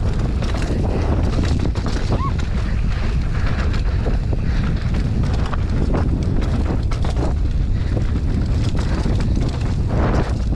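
Wind buffeting the microphone on a mountain bike riding fast down a dirt trail, over the steady rolling of knobby tyres on dirt, with frequent small knocks and rattles from bumps and a short squeak about two seconds in.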